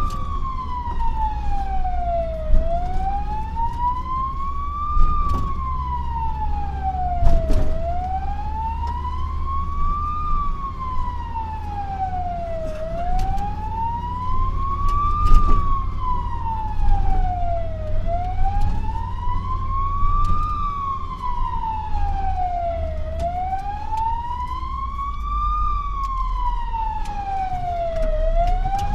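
Fire engine siren wailing in a slow, even rise and fall about every five seconds, heard from inside the cab over the low rumble of the engine, with a few knocks.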